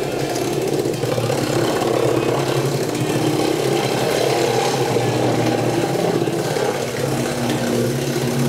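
A car engine running steadily, a continuous hum whose pitch shifts slightly about seven seconds in.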